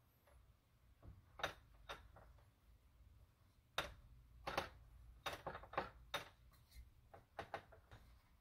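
A dozen or so faint, irregular clicks and taps from a metal muffin tin being handled as rounds of pie dough are pressed into its cups.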